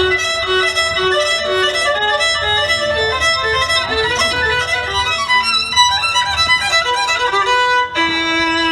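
Solo violin playing a quick run of notes, then settling onto one long held low note near the end.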